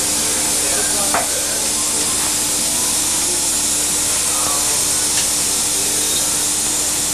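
Steady loud hiss with a steady hum beneath it and a single click about a second in.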